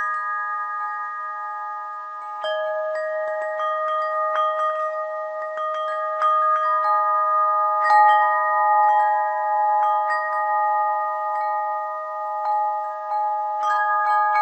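Bells chiming: several tuned notes struck at irregular intervals, a few strikes a second, with each note ringing on and overlapping the others in a steady, unhurried wash.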